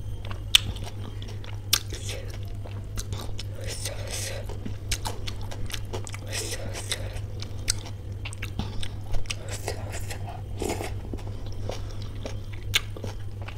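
Close-miked chewing and wet mouth sounds of someone eating soft samosa chaat with ghugni (chickpea curry), broken by scattered sharp clicks.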